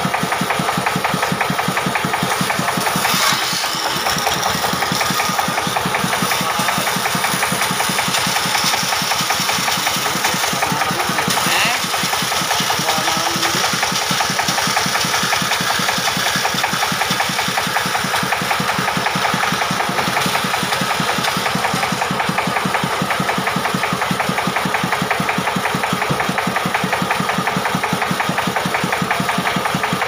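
Dongfeng diesel engine running steadily with a fast, even beat, powering a band saw whose blade is ripping a log lengthwise.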